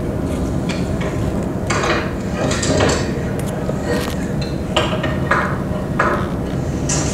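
Wooden hand loom clacking and knocking as it is worked, weaving strips of newsprint: irregular sharp knocks over a steady low rumble.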